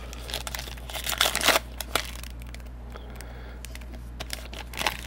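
A plastic trading card pack wrapper being torn open and crinkled, in a cluster of crackles in the first two seconds, then a few smaller rustles, with more crinkling near the end.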